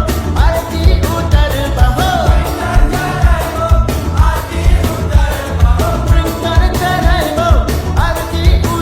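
Music: a Shiva devotional song with a sung vocal line over a heavy, steady electronic bass beat.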